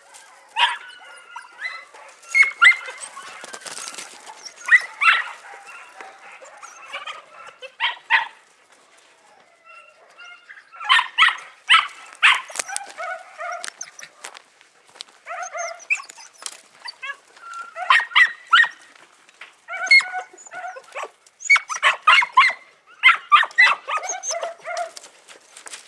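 Young podenco puppies yapping and yelping in repeated rapid bursts of short, high-pitched calls, with a brief lull about ten seconds in.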